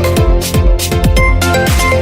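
Mobile phone ringtone playing an electronic dance tune loudly: a fast, steady kick-drum beat under bright synth notes.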